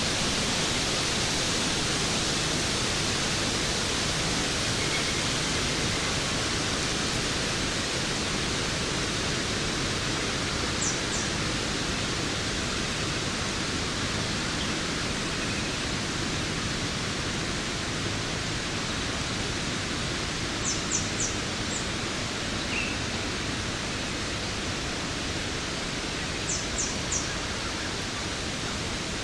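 Waterfall rushing in a steady, even hiss. A few short high chirps come through it in small groups of two or three, near the start of the middle, around two-thirds in and near the end.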